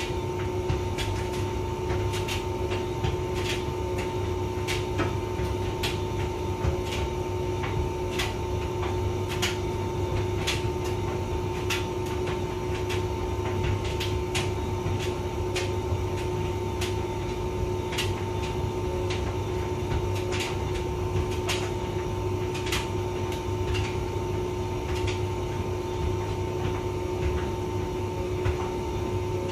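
Hotpoint vented tumble dryer running: a steady motor and drum hum with two held tones, and irregular light clicks throughout.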